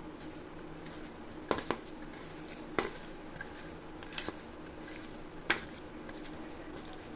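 Raw elephant foot yam slices being tossed by hand with spice powder in a stainless steel bowl: a low, quiet rustle with a few sharp taps of the pieces or fingers against the steel.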